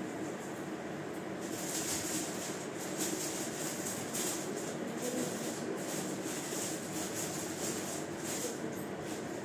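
Steady hum of a running ceiling fan, with saree fabric rustling and crinkling in irregular flurries as it is handled, starting about a second and a half in and stopping near the end.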